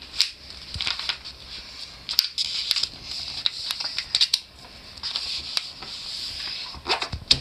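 A sheet of A4 paper being folded in half and creased by hand: crisp rustling and crackling, with a burst of sharp crackles near the end.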